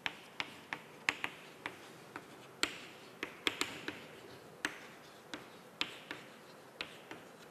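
Chalk writing on a chalkboard: a string of sharp, irregular taps as the chalk strikes the board, about two a second, with a few short scratchy strokes between them.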